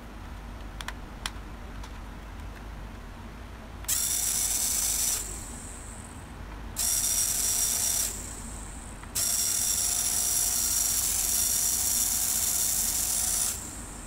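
Small 3.7 V electric motor of a toy RC helicopter driving its plastic spur gear and main rotor head, run up three times in bursts of a high-pitched gear whir, the last lasting about four seconds, each winding down briefly after it stops. Two small clicks come about a second in, before the first run.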